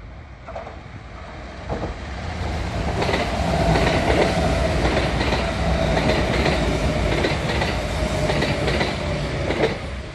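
Red-and-white Kintetsu electric train running through a station without stopping. It grows louder as it approaches, then its wheels clack over the rail joints in quick pairs under a steady high tone, and it drops away near the end as the last car passes.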